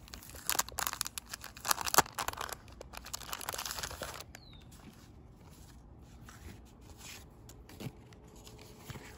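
Clear plastic sleeve of a pop-up greeting card crinkling and tearing as it is opened, with a sharp crackle about two seconds in. After about four seconds the noise dies down to light, occasional rustles of card stock being handled.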